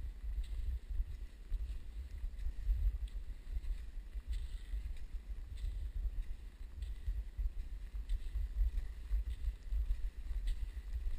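Wind buffeting a moving body-mounted camera's microphone, a heavy, uneven low rumble, with faint ticks about once a second from skis and poles working the snow.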